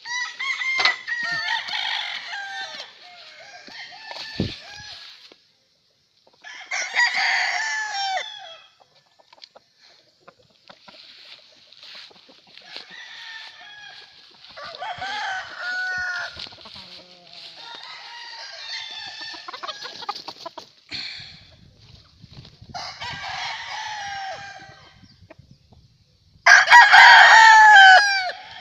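Gamefowl roosters crowing one after another, about seven crows from different birds, some close and some farther off, with the loudest crow near the end. Clucking is mixed in between the crows.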